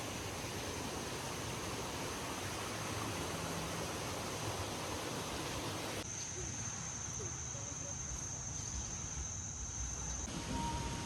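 Outdoor ambience in two cut-together pieces. First comes a steady rushing noise like surf or wind. Then, after a sudden cut about six seconds in, a steady high-pitched insect buzz sounds over a quieter background.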